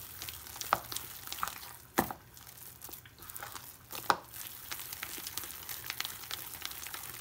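A hand mixing thick, coarsely ground moong dal batter in a plastic bowl: many small, irregular sticky clicks and crackles, with two sharper knocks about two and four seconds in.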